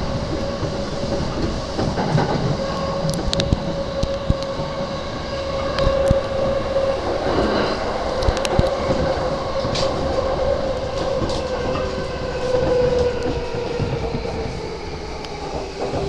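E235-series electric commuter train running, heard from inside a passenger car: a steady rumble of wheels on track with a whining tone that slowly sinks in pitch. Scattered sharp clicks come from the wheels passing over rail joints.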